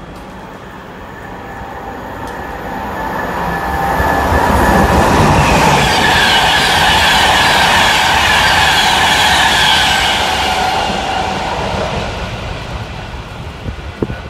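A train passing: it builds over about four seconds, stays loud for several seconds with a steady high-pitched whine over the rumble of the wheels, then fades away.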